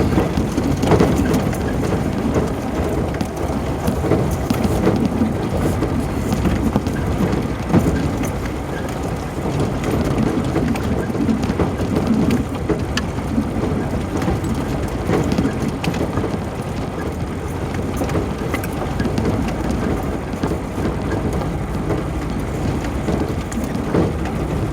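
Off-road vehicle driving over a rough trail: a steady low rumble of engine and tyres on dirt, broken by many small rattles and knocks from the bumps.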